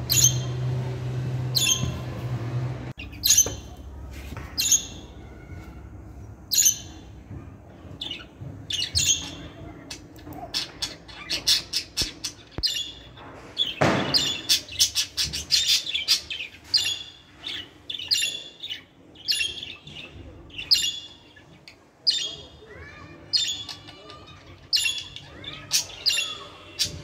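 Pet budgerigars chirping: a long string of short, high chirps, one or two a second, with a fast run of chirps about halfway through and one louder, harsher call just after.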